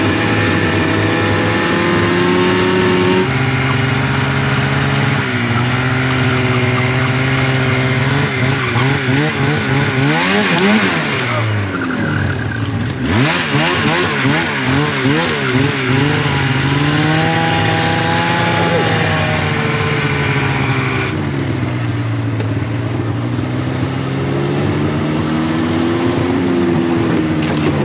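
Snowmobile engine running under load along a rough trail, its pitch rising and falling as the throttle is opened and eased off. Near the middle the engine note wavers rapidly for several seconds as the sled bounces over uneven ground.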